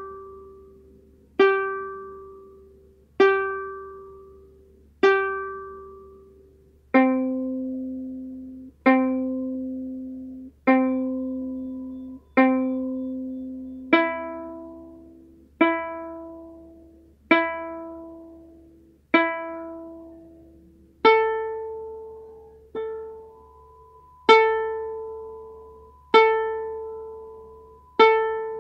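Ukulele open strings plucked one at a time for tuning, one string after another in the order G, C, E, A, each struck about four times roughly every two seconds and left to ring out.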